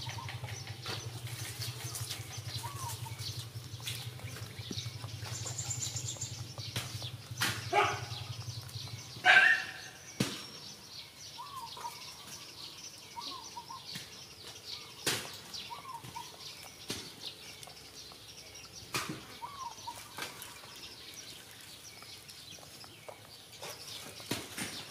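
Cats eating at the ground, with scattered sharp clicks of chewing and crunching, while short bird chirps repeat in the background. A low hum runs until about nine seconds in and stops just as a loud brief call sounds.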